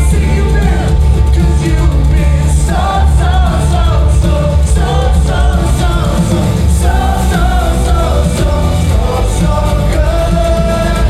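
Live worship band playing a song with a sung vocal line over a heavy, steady bass and regular cymbal strokes.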